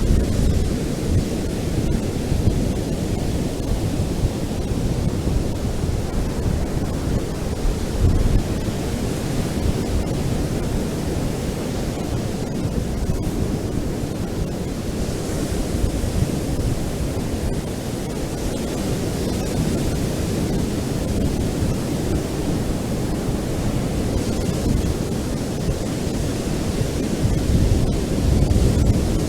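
Ocean surf on a beach: a steady, deep rushing noise with no breaks, and a brief brighter hiss of wash about halfway through.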